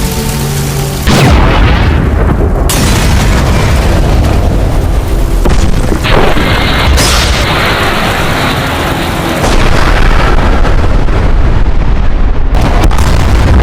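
Loud explosion and blast sound effects over background music. A sudden booming blast hits about a second in and goes on as a heavy, rumbling noise, with fresh blasts about 6 and 9.5 seconds in.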